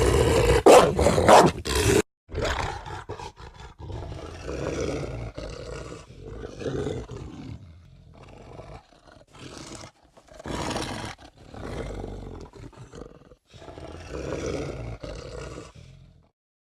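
Werewolf monster sound effect: a loud roar that cuts off abruptly about two seconds in, followed by a run of quieter, separate growls and snarls that stop about sixteen seconds in.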